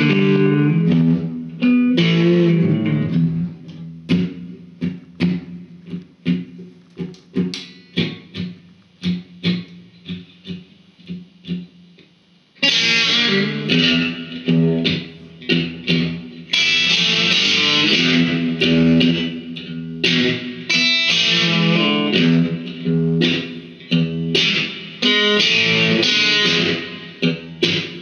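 Electric guitar played alone in a blues instrumental break. Loud chords open it, sparser single picked notes follow from about four seconds in, and dense loud chord playing returns at about twelve seconds.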